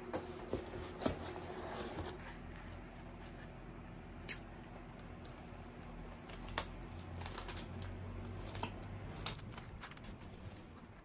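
A cardboard mailer box being opened and unpacked by hand: soft rustling of tissue paper and a sticker being peeled off, with a few sharp taps and clicks of cardboard, the sharpest about four and six and a half seconds in.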